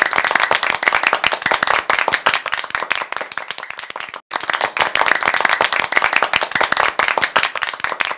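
Applause: a crowd clapping densely and evenly. It cuts out abruptly for a moment about four seconds in, then starts again.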